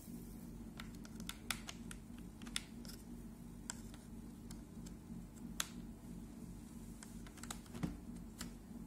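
Scattered light clicks and taps as a cable and its plug are handled at the side of a laptop, over a steady low hum.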